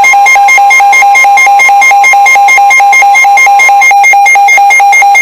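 NOAA Weather Radio alert tone: a loud, rapid electronic beeping of about six beeps a second, over the steady 1050 Hz warning tone. The steady tone cuts off about four seconds in while the beeping goes on, signalling an incoming weather warning.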